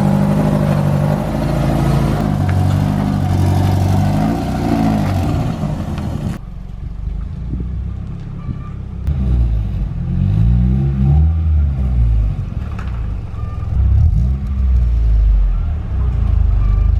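Car engine revving up and down several times, its pitch rising and falling with each blip. About six seconds in, the sound suddenly turns muffled and dull.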